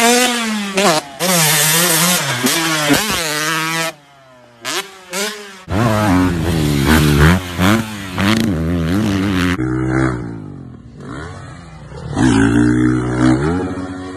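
Motocross dirt bike engines revving hard and falling away in pitch as riders go up and over jumps, in a run of separate clips that cut off abruptly. There is a quieter gap about four seconds in, broken by short engine blips.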